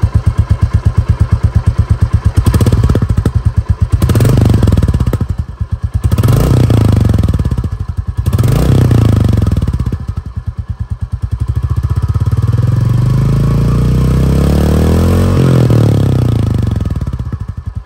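Royal Enfield Bullet 350's single-cylinder engine heard through its stock silencer, idling with an even 'dug dug' thump. It is given three quick throttle blips about two seconds apart, then a longer, slower rev that climbs, peaks and drops back to idle near the end.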